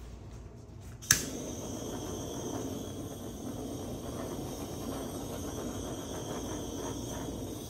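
A handheld butane torch clicks as it is lit about a second in, then its flame hisses steadily as it is passed over wet acrylic paint.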